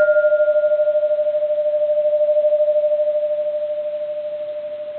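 Bronze Japanese Buddhist temple bell ringing on after a light strike: one steady hum tone with a fast, even waver. A higher overtone fades out within the first second or two while the whole ring slowly dies away.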